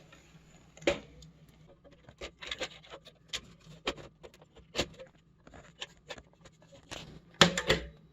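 Scattered clicks and knocks of a computer power supply and its metal mounting frame being handled and fitted, with a louder cluster of knocks near the end.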